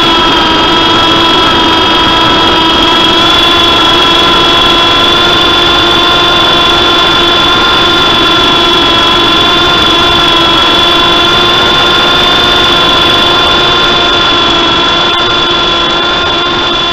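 MJX F645 RC helicopter's electric motor and rotor whining steadily, heard from the camera mounted on the helicopter, with several fixed high pitches over a rushing hum. The level eases slightly near the end.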